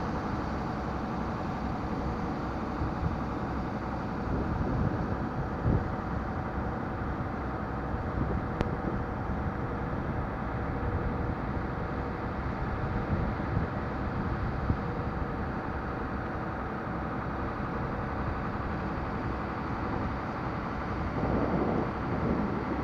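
River ferry's engine running steadily during the crossing, a constant hum with a few faint knocks, swelling briefly near the end.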